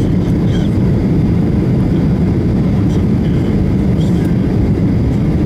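Steady low roar inside the cabin of a Boeing 737 on final approach, a mix of engine and airflow noise heard at a window seat over the wing.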